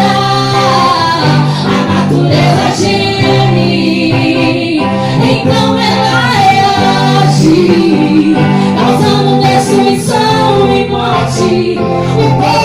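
Gospel song: singing over instrumental backing.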